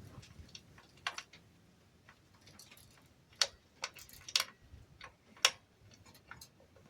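Light, irregular metal clicks and taps as the flange and the reverse-threaded arbor bolt are fitted by hand onto a compound miter saw's blade arbor. There are about half a dozen sharp clicks, most of them between the middle and near the end.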